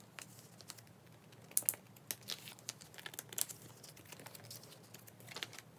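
Photocards being slid out of and into the clear plastic pockets of a binder page: scattered soft crinkles of the plastic sleeves and small clicks and scrapes of the cards, a few sharper ones about one and a half, three and a half and five and a half seconds in.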